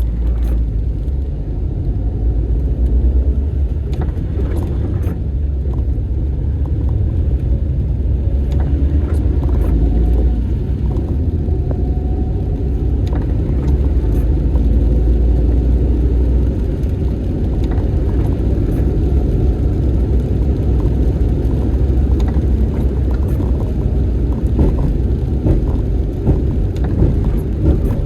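Car driving at road speed: a steady low rumble of road and engine noise, with scattered faint clicks and knocks.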